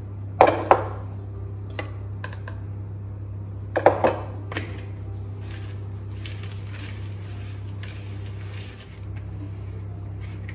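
Metal spoon knocking against a mixing bowl in two short bursts as flour is tipped into the batter, then a whisk stirring the flour into the egg-and-oil mixture with a faint, steady scraping. A low, steady hum runs underneath.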